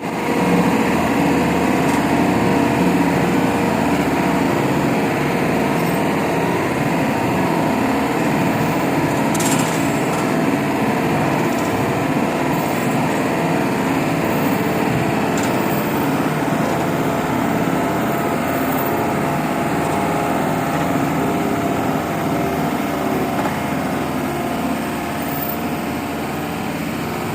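An engine running steadily, a dense mechanical noise with faint steady whine tones, easing slightly near the end.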